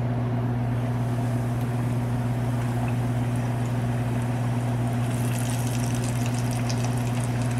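A chicken thigh frying in hot oil, sizzling and crackling, with the crackle growing stronger about five seconds in, over a steady low hum.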